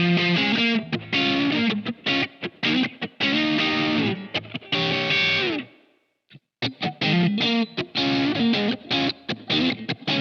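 SQOE SEIB400 electric guitar with Alnico HSS pickups played through distortion: choppy, rhythmic chords and notes, with a run of notes sliding down in pitch that dies away a little over halfway in. After a short gap the riff starts again.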